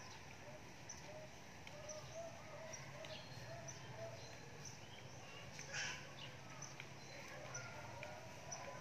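Faint outdoor ambience of small birds chirping and calling over and over, over a low steady hum, with one brief louder sound about six seconds in.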